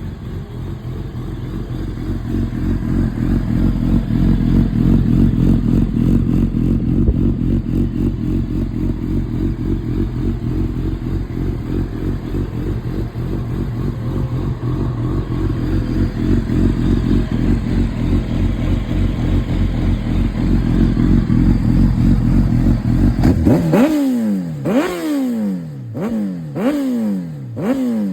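2007 Kawasaki ZX-10R inline-four sport bike running through a Two Brothers aftermarket exhaust, idling steadily. About 23 seconds in the throttle is blipped about five times in quick succession, each rev rising sharply and falling back.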